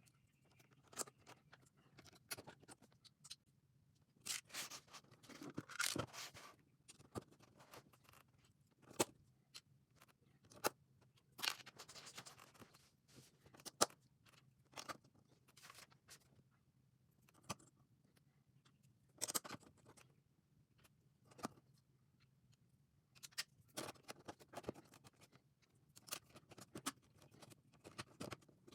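Plastic LEGO pieces clicking together and being handled, with scattered sharp clicks and short scraping, rustling noises as parts are picked up and pressed into place.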